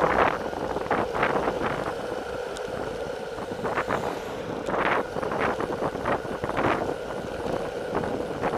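Wind rushing over the microphone of a camera on a road bike descending at speed, coming in irregular gusts over a steady hum of tyres rolling on asphalt.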